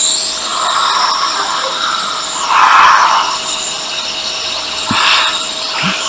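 Electric air blower running with a steady hiss as it blows a freshly cleaned circuit board dry. The air rushes louder a little before halfway and again near the end.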